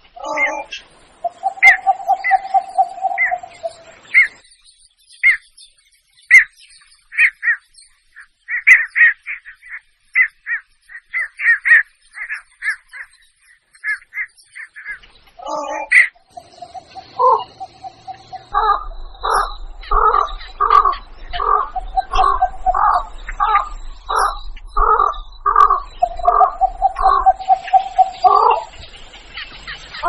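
Recorded blekok heron calls played as a hunting lure. A long string of short, high calls, two to four a second, with a held lower note near the start. From about halfway a faster run of louder, harsher, lower calls takes over, ending in another held note.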